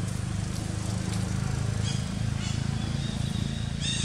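A steady low engine-like hum. Short high-pitched chirps come about two seconds in and again, repeated, near the end.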